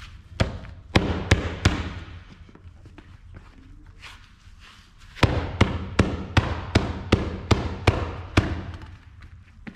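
Wooden glove mallet pounding a stiff kip-leather baseball glove on a break-in pad to break the leather in: four blows, a pause of about three seconds, then a quick run of about nine blows, roughly three a second.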